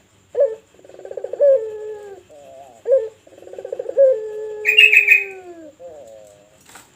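Puter pelung dove (a Streptopelia turtle dove) cooing over and over: rolling, pulsed coos that slide down into long drawn-out falling notes. A brief higher chirping joins in about five seconds in.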